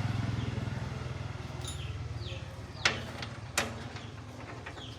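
A small engine running with a steady low pulse that fades away over the first two seconds or so. Two sharp clicks follow, about three and three and a half seconds in, with a few short falling chirps around them.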